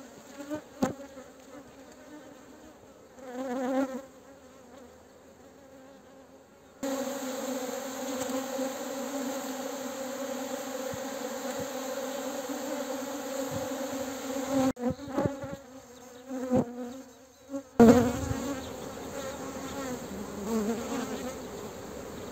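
A swarm of honeybees buzzing in flight around hive entrances: a steady, even hum that swells and drops between shots. A few brief sharp knocks break through it, the loudest about eighteen seconds in.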